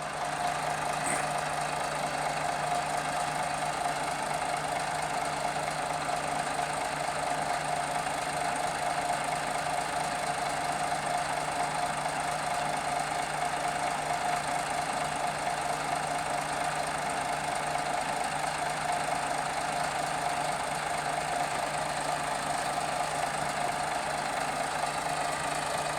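Bulldozer's diesel engine running steadily at an even speed, with a constant hum and no revving.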